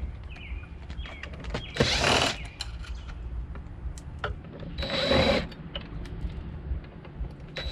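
Power drill run in reverse in two short bursts, about 2 and 5 seconds in, backing screws out of an RV baggage-door lock, with small clicks between them.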